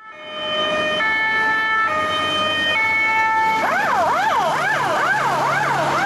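Fire engine siren: a two-tone hi-lo alternation changing about once a second, which switches about three and a half seconds in to a fast rising and falling wail.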